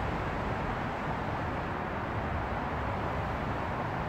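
Steady outdoor background noise: an even hiss and low rumble of the kind distant traffic gives, with no distinct events.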